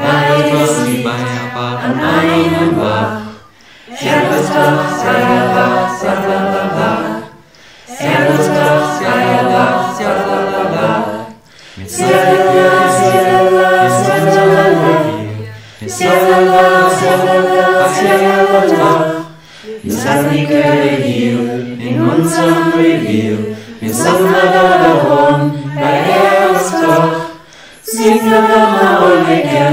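A mixed choir of men's and women's voices singing unaccompanied, in phrases about four seconds long with a short breath between each. The singers were recorded separately at home and mixed into one virtual choir.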